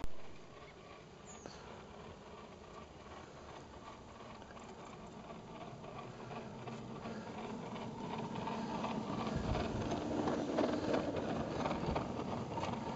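Battery-electric garden-railway locomotive running with a snow plough through snow, its electric motor giving a steady buzzing whir that grows louder as it comes close near the end.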